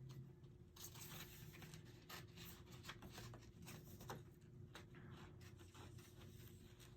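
Scissors snipping through glossy photo paper, a faint, irregular run of short crisp cuts and paper rustles, over a low steady room hum.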